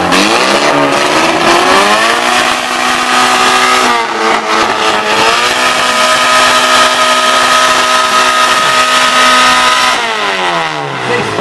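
Off-road buggy engine revved up and held at high revs, dipping once briefly and climbing again, then falling back toward idle near the end.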